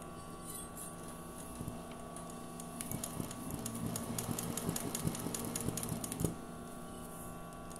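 Sewing machine stitching free-motion embroidery on hooped fabric: a rapid run of needle strokes for about three seconds, starting a few seconds in and stopping abruptly.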